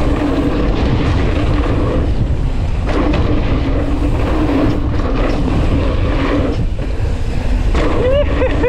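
Wind rushing over the camera's microphone and mountain bike tyres rolling fast over a dirt jump trail, a steady loud rumble. A few short wavering tones come in near the end.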